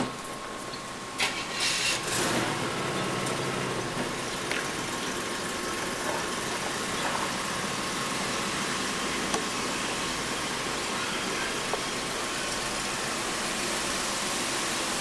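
An engine running steadily at idle, a constant drone with a hiss over it.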